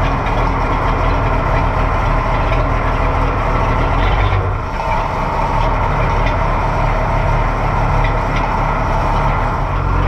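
Oliver 1650 tractor's six-cylinder diesel engine running steadily just after a cold start.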